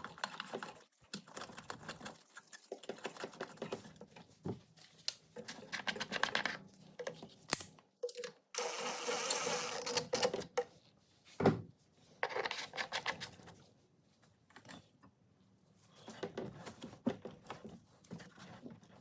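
Bursts of rapid clicking and rattling from hand tools and small metal parts during mower reassembly, with a hiss lasting about two seconds near the middle and a single thump soon after.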